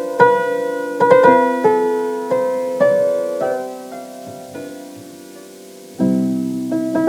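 Background piano music: slow struck notes and chords that ring and fade, thinning out to a quiet pause before new chords come in about six seconds in.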